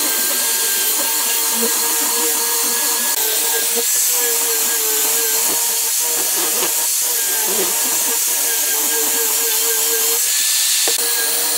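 Angle grinder with a sanding disc running steadily, its motor whine held at one pitch over the hiss of the disc sanding a pine board. The pitch wavers briefly about midway.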